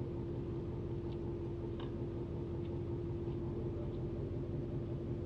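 Fishing boat's engine running, a steady low rumble with a constant hum. A few faint clicks come through during the first three seconds.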